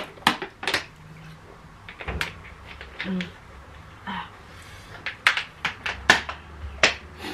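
Close-miked eating sounds: sharp crackles and clicks of chewing crispy batter-fried tempeh (tempe kriuk), in irregular runs with pauses, thickest in the last couple of seconds.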